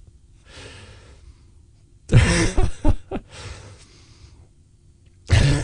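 A man breathing audibly into a close microphone, with soft hissing breaths and a loud voiced sigh about two seconds in, and another voiced sound near the end.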